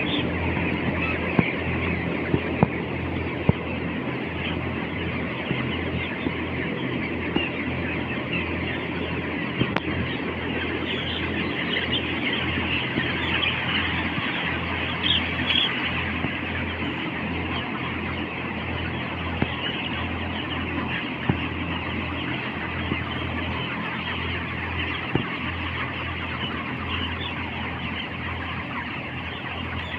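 A large flock of broiler chickens in a poultry house, many birds clucking and chirping at once in a continuous chorus, over a steady low hum, with a few scattered clicks.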